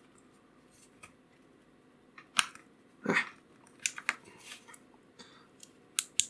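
Small metal parts of a mini flashlight's switch assembly being handled and fitted back together close to the microphone: a few sharp, light clicks and short scrapes at irregular intervals, with a quick pair of clicks near the end.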